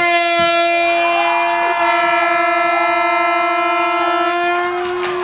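Handheld air horn blasting one long, steady note that holds for about five seconds, as a penalty is struck.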